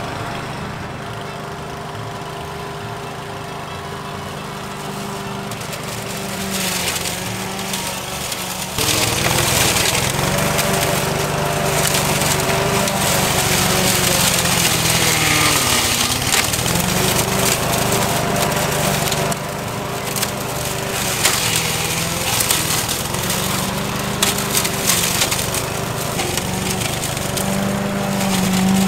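Petrol walk-behind lawn mower engine running, then from about nine seconds in its blade chops through thick weeds and leafy branches, louder and much noisier over the engine. Around sixteen seconds in, the engine's pitch dips under the load and then recovers.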